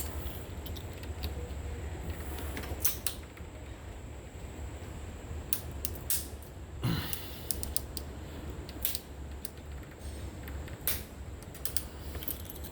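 Irregular sharp clicks and creaks from a spline roller pressing rubber spline and screen mesh into a screen door frame's channel, over a steady low hum.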